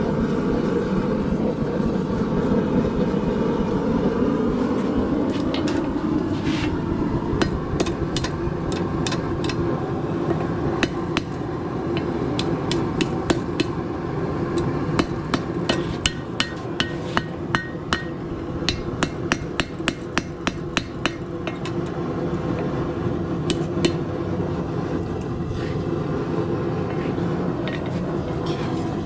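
Blacksmith's hammer striking hot steel on an anvil, scattered blows and then quick runs of about three strikes a second, some leaving a short metallic ring. A steady low rushing noise runs underneath.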